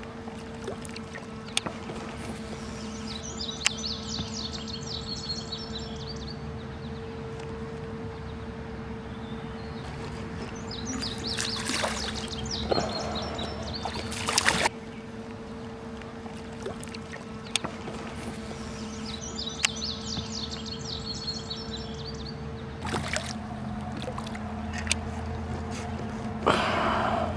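A kayak being paddled on a river: paddle strokes with water splashing and trickling off the blades, and light knocks. A steady low hum runs underneath, and a high chirping comes twice.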